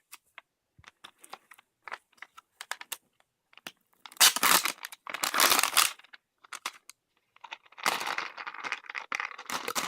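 Small plastic snack packet of Monterey Jack chips being handled and torn open: light crinkles and clicks at first, then two loud bursts of tearing and crinkling about four to six seconds in, and a longer stretch of crinkling near the end.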